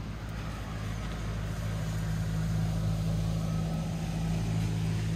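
Steady low mechanical hum, like a motor or engine running at an even speed, growing a little louder in the first couple of seconds and then holding steady.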